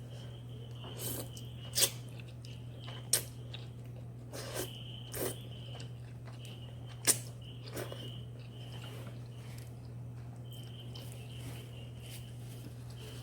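Someone eating spicy noodles: soft chewing and mouth sounds, with a few sharp clicks, over a steady low hum.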